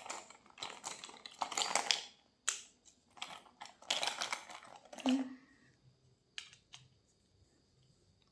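Small stationery items being handled, with irregular plastic clicks and rustling for about five seconds, then a few scattered clicks.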